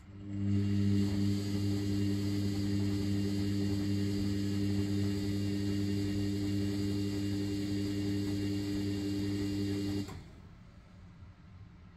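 Sharp (Vestel-built) ES-GFB7145W front-loading washing machine tumbling its drum during the main wash of a 90° boil cycle: a steady motor hum over water sloshing, starting about half a second in. It cuts off about ten seconds in as the drum stops for its pause between turns.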